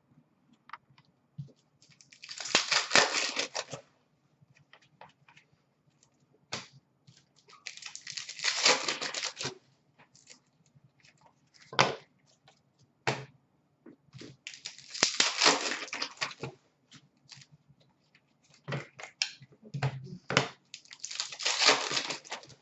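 Hockey trading cards and their foil pack wrappers rustling as they are handled, in four bursts of about two seconds each, with small clicks and taps between.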